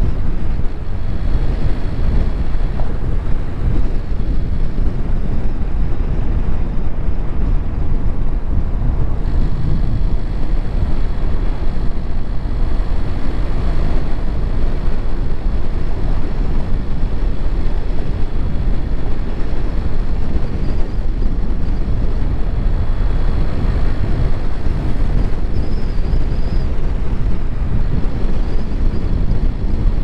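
Steady road and wind noise from a car on the move, a loud, unbroken low rumble with wind buffeting the microphone.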